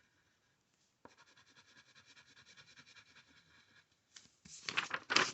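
Gray colored pencil scratching back and forth on paper as an area is coloured in: faint at first, with louder strokes near the end.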